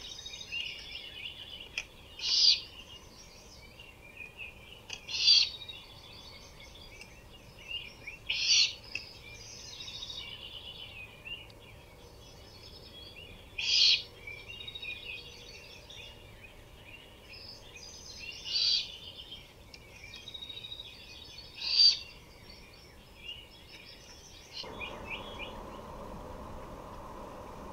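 Great horned owl giving loud raspy screech calls about every three seconds, over a chorus of smaller birds calling. About three seconds before the end this gives way to a steady hiss.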